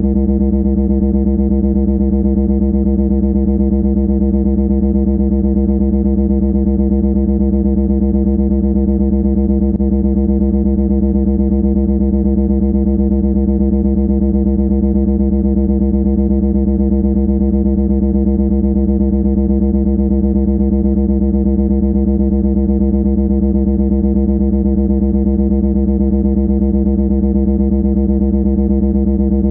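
Loud, steady droning buzz held at one low pitch without any change, with a fast fluttering rattle in it.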